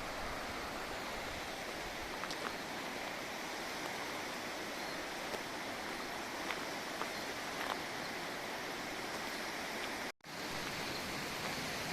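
Mountain stream running steadily, an even rush of water, with a split-second dropout to silence about ten seconds in.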